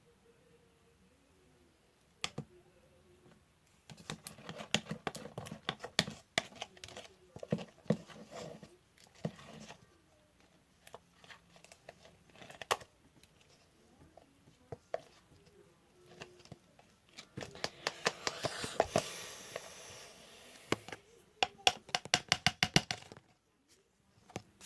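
Homemade fabric-glue slime being mixed and kneaded by hand: irregular bursts of sticky clicks and squelches, with a quick, even run of clicks near the end.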